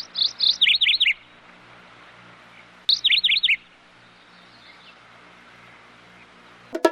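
Bird chirping: two quick runs of short chirps, each dropping in pitch, the first about a second long at the start and the second about three seconds in, with faint outdoor background between.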